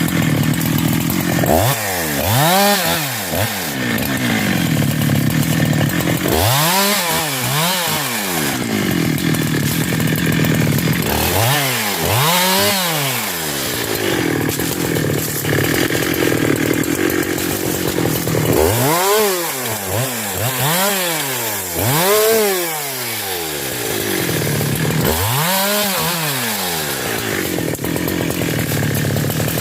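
Husqvarna 372 two-stroke chainsaw running, its engine speed swelling up and falling back again and again, in clusters of two or three, between stretches of steady high-speed running.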